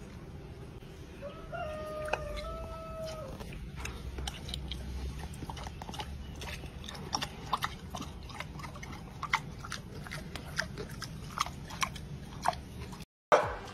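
A pot-bellied pig chewing a small hard morsel, with irregular sharp crunches and clicks. A steady whine of about two seconds comes a second in.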